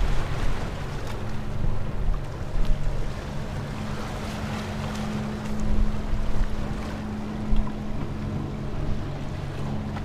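Small waves washing over shoreline rocks, with the steady low hum of a motorboat engine out at sea and wind gusting on the microphone.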